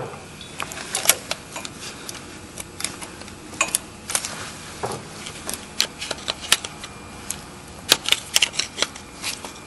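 Irregular metal clicks and ticks as a worm-drive hose clamp on the lower water pump hose is loosened with a hand tool.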